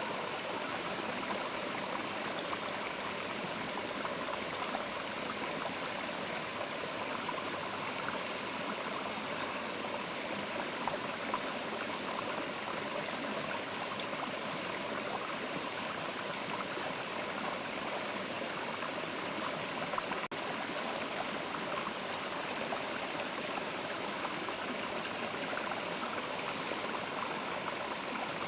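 Mountain river running with a steady, even rushing of water. A faint, thin high-pitched sound rides on top for about ten seconds in the middle, and there is a brief dropout about twenty seconds in.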